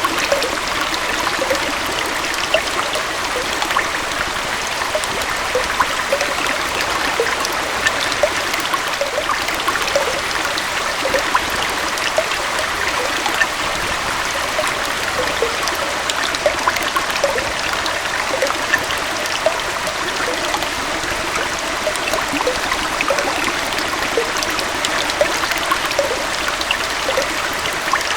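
Small forest waterfall and stream flowing steadily, a constant rushing wash of water with many small splashes and gurgles.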